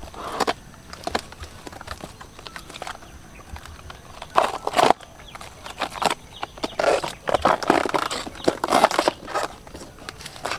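Layered leaf sheaths of a banana trunk being peeled and split apart by hand: irregular, crisp tearing and snapping sounds in short bursts, the loudest about halfway through and in a cluster near the end.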